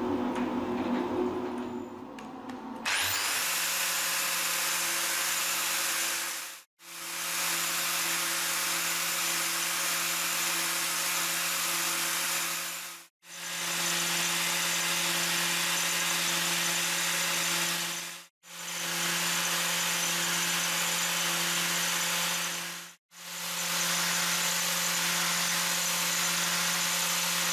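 Angle grinder running steadily from about three seconds in, taking a light surface-grinding pass over a hardened steel roller: a constant motor hum with a hiss over it. It drops out to silence four times, briefly.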